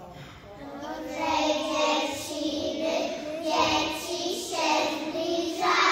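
Young children singing together, with held notes; the singing begins right at the start and grows louder about a second in.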